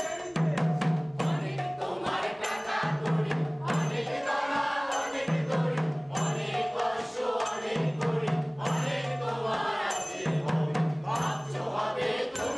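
A chorus of voices singing together with percussion keeping an even, repeating beat.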